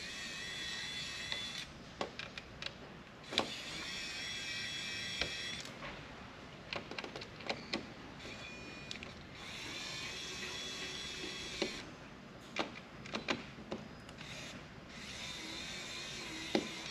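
Kaiweets ES20 electric screwdriver with a triple-aught Phillips bit, running in four spells of a few seconds each as it backs out small hard-drive screws. Its motor gives a steady high whine, which sounds to the user as if it may be bogging down on the little screws. Sharp clicks and taps come between the runs.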